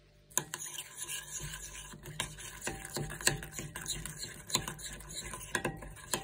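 Spoon stirring a thick tandoori marinade in a glass bowl, with irregular clinks and scrapes of the spoon against the glass, starting about a third of a second in.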